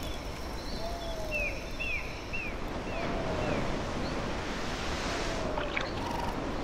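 Night-time nature ambience: a steady rushing wash with short high falling chirps repeating about twice a second in the first half, and a lower falling call recurring every second or so throughout. A few soft rustles come near the end.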